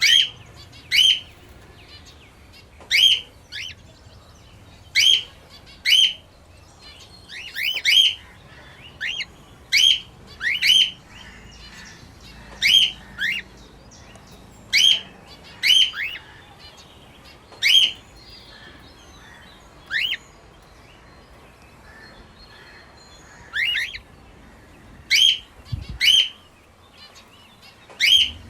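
Cockatiel chirping: a short chirp that falls in pitch, repeated every second or two and sometimes doubled, with a longer pause just after the middle.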